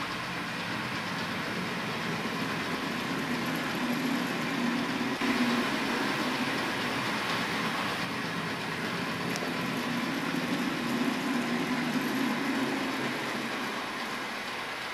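Two-disc pintograph drawing machine running: its turntable motors and wooden pen linkage give a steady mechanical whirr, with a low hum that swells twice.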